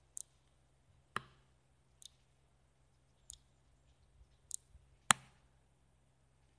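About half a dozen sharp, irregular clicks and ticks, the loudest about five seconds in, over a faint low steady hum.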